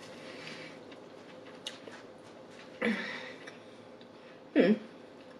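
Eating sounds: a metal fork clicking faintly against food and a plate, with two short voiced mouth sounds, one about three seconds in and a louder one near the end.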